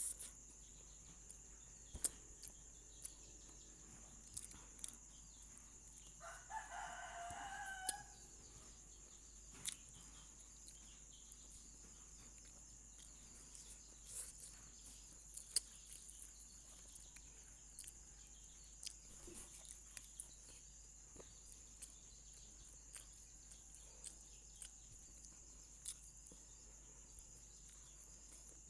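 A rooster crows once in the distance, a single call of about two seconds that starts about six seconds in, over a quiet background with scattered faint clicks.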